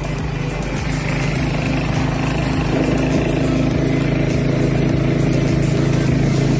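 A vehicle's engine running steadily while driving along at an even speed, with road and wind noise.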